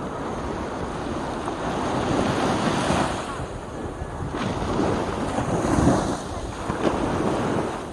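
Small sea waves wash in and spread up the sand at the water's edge. The surf swells and eases in surges, with wind buffeting the microphone.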